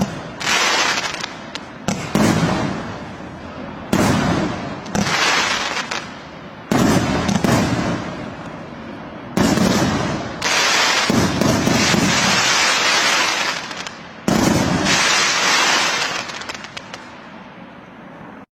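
Fireworks going off in a series of about a dozen loud bangs, each dying away over a second or so, some coming in quick pairs. The sound cuts off suddenly near the end.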